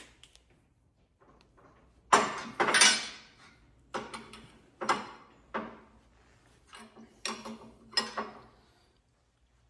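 Steel tools and parts clinking and knocking as a jam nut is run up and tightened against a steel vise base's pin adapter: about eight separate metallic knocks spread over some six seconds, starting about two seconds in.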